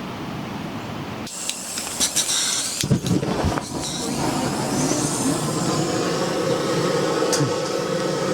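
A few sharp clicks and knocks with a brief bright hiss, then a steady rushing hiss that holds on.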